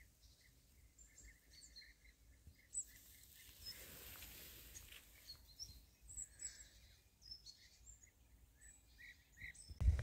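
Faint birds chirping: short chirps repeating several times a second, with higher calls scattered among them, over quiet river air.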